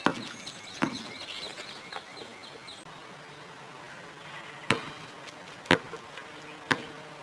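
Basketball bouncing on a concrete driveway as a dog bats it with its nose: a few sharp bounces, the last three about a second apart.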